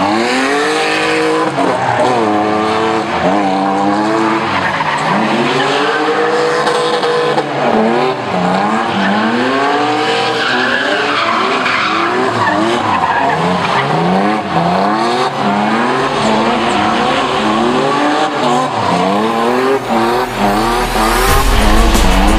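BMW E30 drift car's engine revving up and down again and again as it slides, with tyres squealing on the asphalt.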